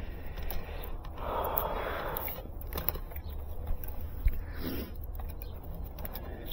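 Handling noise as hands work a black fiber drop cable: a stretch of rustling and scraping, then a single light click a little past four seconds and a brief softer rustle, over a steady low rumble.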